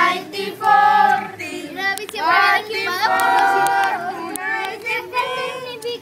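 A group of children's voices singing together, with some notes held for about a second.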